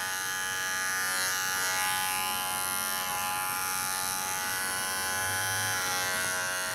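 Electric pet grooming clippers running with a steady buzzing hum while trimming a Shih Tzu puppy's coat.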